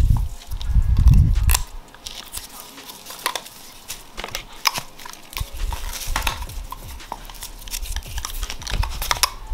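Hands working on cardboard fireworks tubes, punching fuse holes and pushing fuses in, giving irregular small clicks and taps. A low, muffled rumble in the first second and a half.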